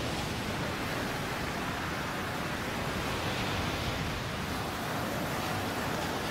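Heavy surf breaking and churning over the shore, a steady rush of foaming water.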